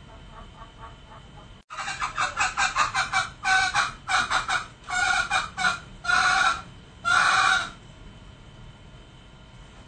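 Male green junglefowl calling: faint clucks, then from about two seconds in a quick run of clucks that slows into longer, louder notes, the last ending near eight seconds.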